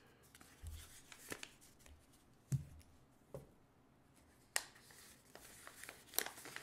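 Folded paper instruction sheets being handled and unfolded, with faint rustling and a handful of sharp clicks and light taps against a cardboard watch box. The loudest clicks come about two and a half and four and a half seconds in.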